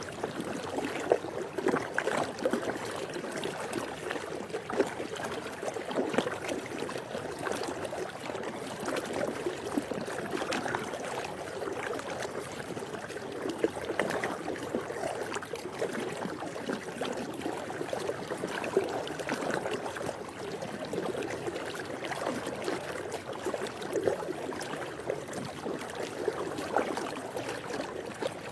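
Swimming pool water lapping steadily, with many small splashes and drips throughout.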